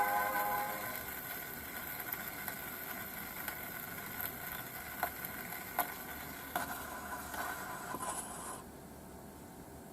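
Homemade gramophone playing a shellac 78 through a paper horn. The last notes of music fade within the first second, leaving steady surface hiss and scratchy crackle from the needle in the groove, with a few sharp pops. The hiss cuts off suddenly near the end.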